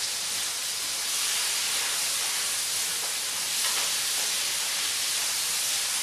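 Vegetables sizzling in a hot wok: a steady frying hiss.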